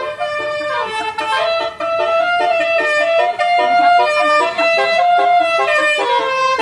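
Telolet Basuri bus horn playing a tune: a loud run of short, stepped, horn-like notes.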